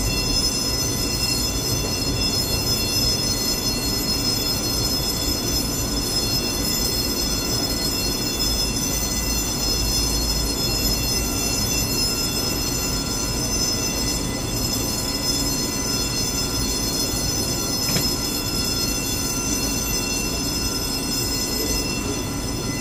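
Steady high-pitched jet turbine whine over a low rumble from a parked Boeing 757-300, holding an even pitch with no spool-up or wind-down.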